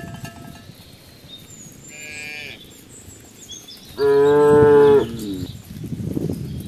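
Cattle mooing: a short, fainter moo about two seconds in, then a loud moo lasting about a second from about four seconds in, falling in pitch as it ends. A cowbell rings briefly at the very start.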